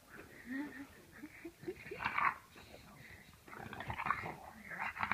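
English bulldog squirming on its back, making several short bursts of grunting, wheezy breath noises through its flat-faced airway, the loudest about two seconds in and again around four seconds in.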